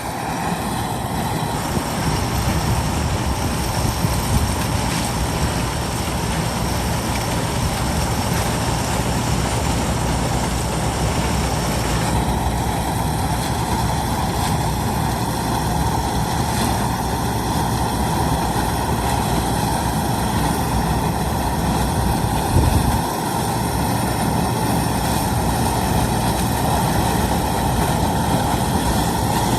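A heavy farm machine's engine running steadily under a dense mechanical whir, with a brief louder moment a little past twenty seconds in. The sound shifts slightly about twelve seconds in.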